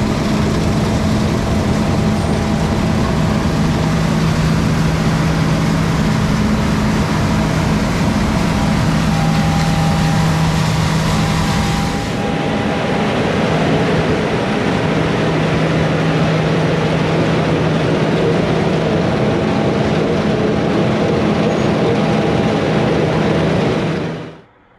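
Heavy harvest machinery, combine harvesters and a tractor pulling a grain cart, running steadily with a low engine drone. The sound changes abruptly about halfway through and fades out near the end.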